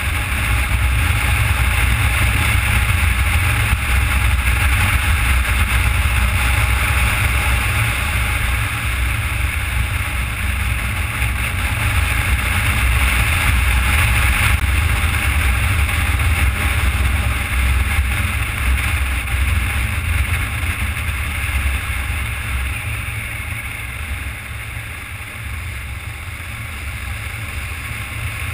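Motorcycle riding at road speed, heard from a camera mounted on the bike: a steady rush of wind over the microphone with the engine's low drone underneath, easing slightly near the end.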